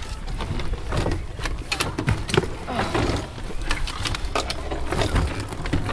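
Irregular clicks and rattles of bags and belongings being handled and packed, over a low rumble of wind on the microphone.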